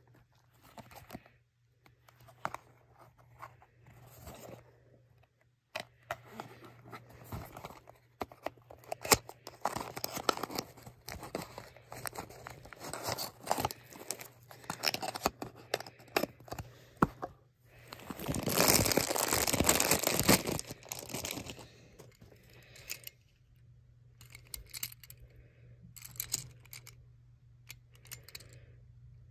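Handling and unboxing a Tomica die-cast toy car: scattered clicks and rustles of the small cardboard box being opened and tearing, and the toy car's wheels rolled over carpet. Near the middle, a loud continuous scraping, rustling noise lasts about three seconds.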